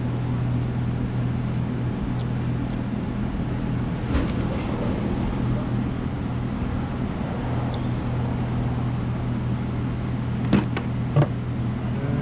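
A steady low machine hum, with a few small clicks and knocks as the blower's carburetor and throttle cable are worked free by hand.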